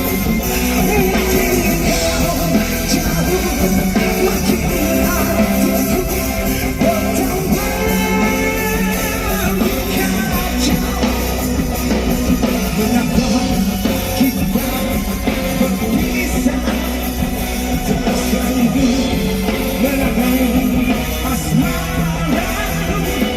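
Live rock band playing a song through the PA, with electric guitar and some singing.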